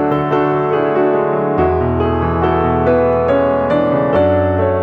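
Background piano music: a melody of single notes over a bass line that changes every few seconds.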